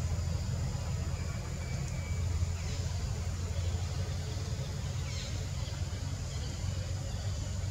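A steady low rumble, with a few faint, short, high chirps over it.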